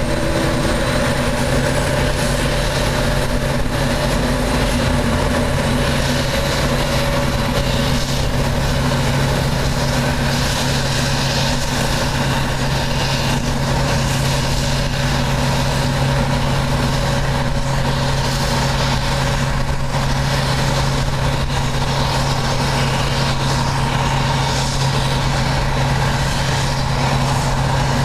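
Claas Jaguar 960 forage harvester chopping maize, its engine running steadily under load with a low drone, mixed with the engine of the tractor pulling the forage wagon alongside.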